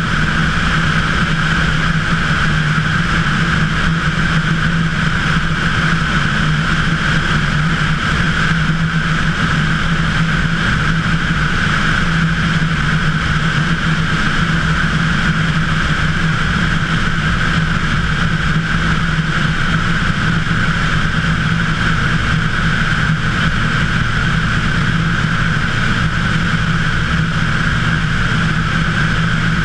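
Cessna 185 floatplane's flat-six piston engine and propeller droning steadily in flight, heard from outside under the wing with wind rushing over the microphone.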